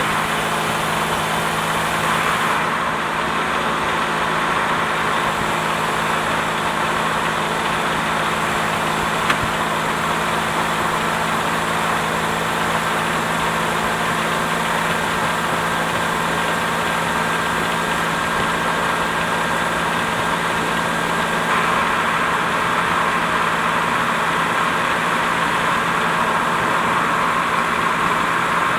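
GM 3800 Series II V6 engine idling steadily, heard from beneath the car beside the Getrag 282 transaxle and exhaust. A single sharp click sounds about nine seconds in.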